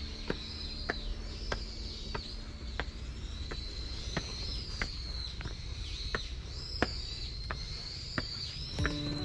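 Footsteps climbing stone stairs, a sharp step about every two-thirds of a second, under birds calling continuously with repeated high, arching chirps. Background music comes in near the end.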